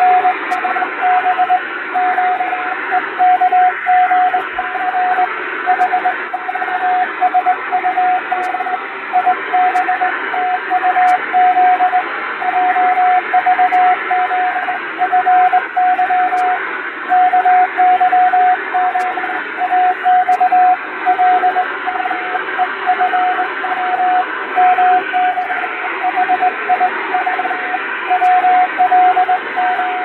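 Morse code sent by hand on a straight key: a single mid-pitched tone keyed on and off in dots and dashes, spelling out random five-letter code groups. It sits in a steady bed of shortwave static hiss, recreating a received radiotelegraph signal with noise and fading.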